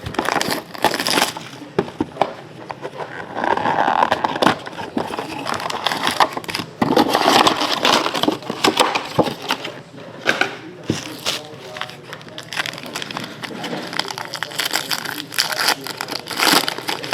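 Crinkling plastic wrap and scraping cardboard as a sealed box of trading cards is torn open and the cards handled, with many short crackles and clicks.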